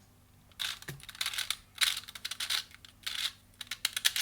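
2x2 pocket Rubik's cube being turned quickly by hand, its plastic layers clicking and rattling in a rapid run of short bursts that start about half a second in, as a move sequence is repeated.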